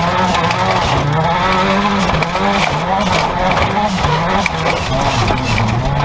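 Seat Ibiza 16-valve turbo stock car engine heard from inside the stripped cabin, revs rising and falling again and again as the driver works the throttle through the corners, over a steady rush of tyre and dirt noise.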